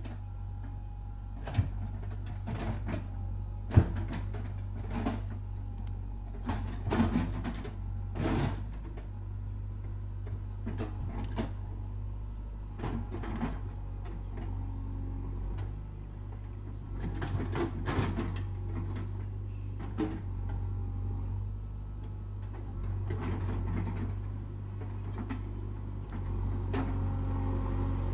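JCB backhoe loader's diesel engine running steadily while the backhoe bucket digs a trench, with repeated knocks and clunks from the bucket and arm; the loudest knock comes about four seconds in.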